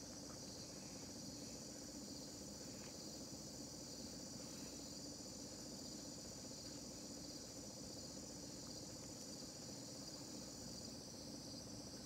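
LG Inverter V ductless mini-split outdoor unit running steadily in cooling mode, its condenser fan and compressor giving a low, even hum. Over it sits a steady high-pitched buzz, in which a thin high tone stops near the end.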